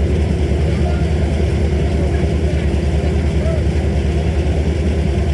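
A heavy engine running steadily at a constant speed, with a fast, even low throb.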